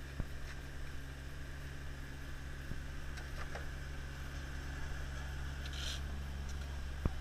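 Asphalt truck's diesel engine running steadily with a low hum, with sharp knocks of hand tools on the asphalt just after the start and again near the end.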